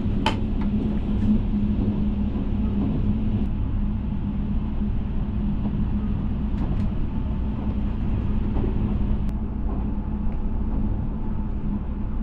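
Steady running noise inside the compartment of a Tobu 100 series SPACIA electric express train: a low rumble of wheels on rail with a constant hum underneath. A single sharp click comes right at the start.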